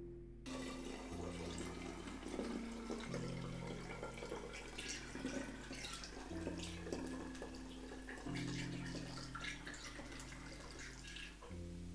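Almond milk poured through a plastic funnel into a glass bottle: a steady pouring splash with many small splashes and gurgles. It starts about half a second in and stops near the end.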